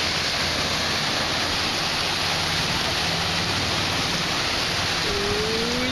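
Steady rushing hiss of ocean surf and moving seawater, even in level throughout.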